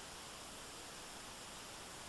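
A stream running: a steady, even rush of water with no changes.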